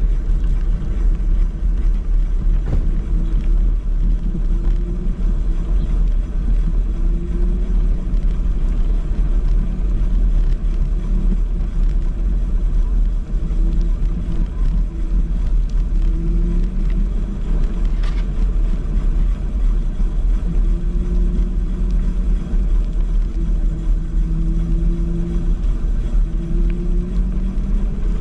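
Riding an electric scooter: wind and road noise make a steady low rumble on the microphone. The electric motor hums faintly now and then, its pitch gliding up and down as the scooter speeds up and slows.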